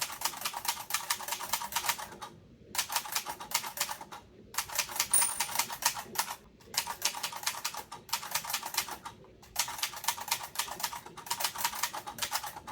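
Typewriter being typed on: quick runs of sharp keystroke clicks, each run lasting about two seconds, broken by short pauses.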